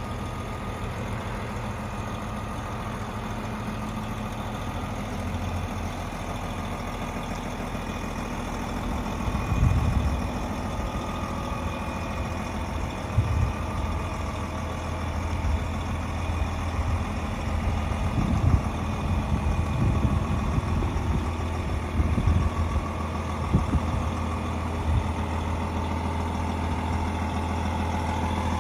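DAF XG 480 truck's diesel engine idling steadily, a low, even hum, with a few short low thumps in the middle stretch.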